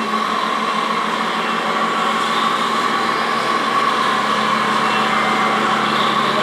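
Radio-controlled model truck running, a steady mechanical hum with a constant high drone.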